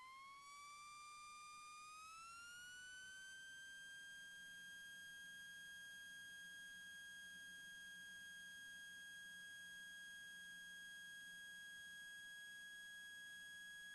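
Faint electrical whine in the cockpit intercom audio, rising in pitch over the first three seconds and then holding steady: alternator whine that follows the Cessna 172 engine's rpm as it is brought up to full power.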